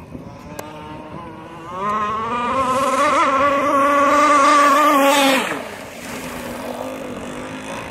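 Radio-controlled catamaran boat with a Zenoah G260 PUM two-stroke petrol engine running flat out across the water, a high, buzzing engine note. It grows loud from about two seconds in, then its pitch drops sharply about five and a half seconds in and it goes on quieter.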